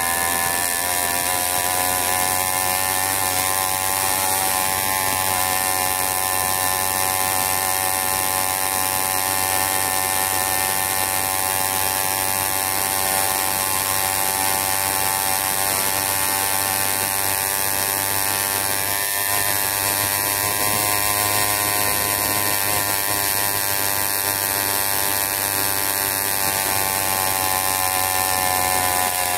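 The 80cc Wildcat's small engine running steadily under way, at an even engine speed with only slight shifts in pitch.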